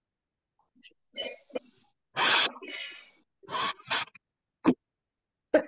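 A woman blowing into cupped hands as if inflating a balloon, then several puffs and hissing blows through pursed lips, one of them a longer buzzing blow, to mimic a balloon escaping and flying off as it deflates.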